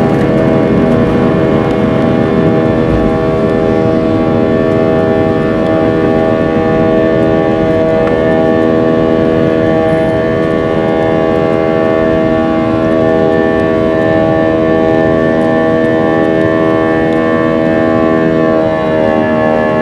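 Airliner engines at takeoff power, heard inside the cabin through the takeoff roll, liftoff and initial climb: a loud, steady drone made of several held tones over a rushing noise, the tones shifting slightly near the end.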